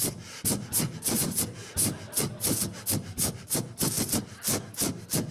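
Rapid run of short clicking, hissing taps, about four a second, acting out pressing a flip phone's keys over and over to spell out a text message.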